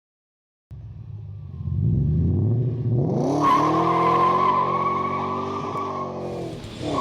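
A car engine revving up, rising in pitch, then a steady high tyre squeal over the engine for about three seconds, as in a burnout.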